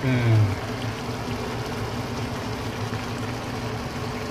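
Mutton pulao bubbling in an uncovered pot on high heat as the last of the broth boils off the rice, over a steady low hum. A short falling tone at the very start is the loudest sound.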